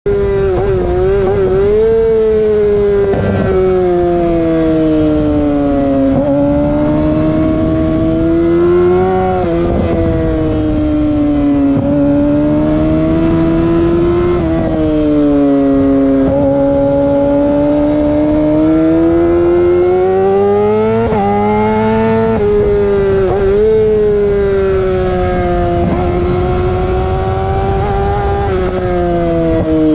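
A vehicle engine held at high revs and revved, its pitch swelling and sagging, with quick throttle blips every few seconds.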